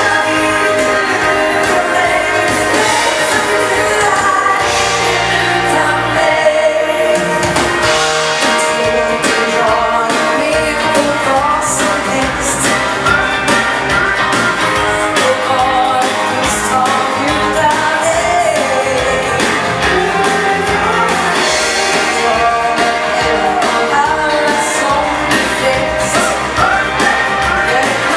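Live Swedish dansband music played for bugg dancing: a band with a singer over guitar, bass and drums keeping a steady beat. The bass and drums drop out briefly about seven seconds in.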